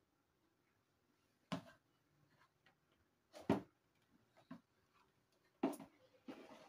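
Five scattered knocks and clatters of hard plastic on plastic: a plastic jug bumping a plastic basin and a jerrycan funnel while liquid detergent is scooped and poured.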